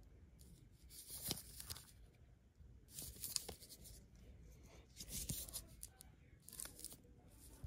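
Paper-wrapped soap bars rustling and scraping against a cardboard box as they are handled, in several short bursts.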